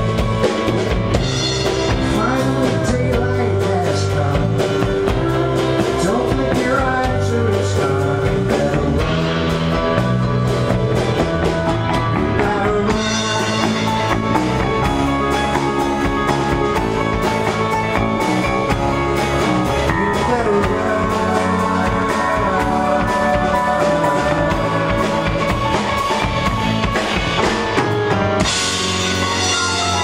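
Live band playing an instrumental passage without vocals: drum kit keeping a steady beat under bass guitar and keyboards.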